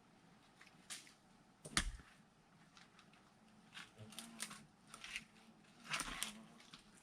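Firewood-splitting work: one sharp wooden knock about two seconds in, then a scattered run of lighter clicks and knocks as pieces of wood are handled.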